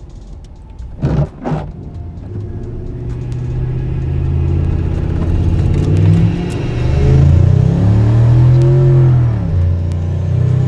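Turbocharged V8 of a 2003 Ford F-150 pickup accelerating hard at full throttle, heard from inside the cab. The engine note rises in pitch and drops back at gear changes, once around the middle and again near the end. Two short knocks come about a second in.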